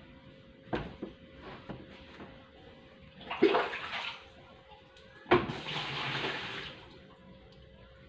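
Water gushing out through a washing machine's drain in two surges, about three and five seconds in: the drain is flowing freely again after the coins and buttons clogging it were cleared.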